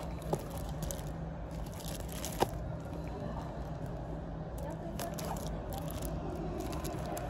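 Café room tone: a steady low hum under faint background chatter, with two short sharp clicks, the louder about two and a half seconds in.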